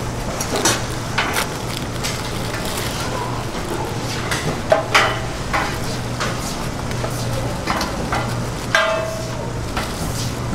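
A steady low hum of stall background, under scattered light rustles and clicks as plastic-gloved hands press and spread rice onto a sheet of laver on a bamboo rolling mat. A short high-pitched sound comes near the end.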